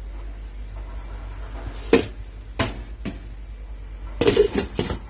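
A glass lid is set onto a stainless steel pot. There are single sharp knocks about two, two and a half and three seconds in, then a short clatter of the lid rattling on the pot's rim near the end.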